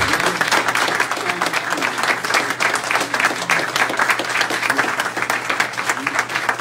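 Applause from a small audience: many hands clapping in a dense, steady patter.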